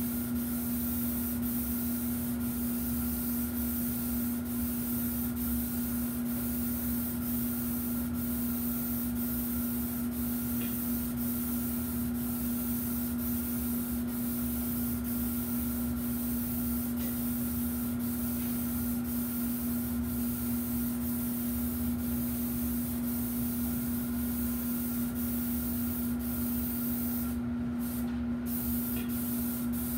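Electrostatic paint sprayer running as it sprays: a steady hum under a constant hiss of atomised paint, with a faint regular tick about every two-thirds of a second. Near the end the hiss cuts out twice, briefly.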